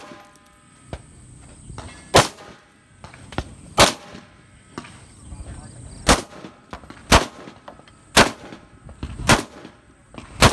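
Rifle shots fired one at a time, about seven in all, spaced one to two seconds apart, each sharp and loud, with fainter knocks between them.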